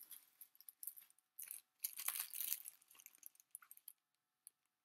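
Thin plastic bag crinkling and rustling as it is handled and pulled around a small plant pot, loudest about two seconds in and dying away near the end.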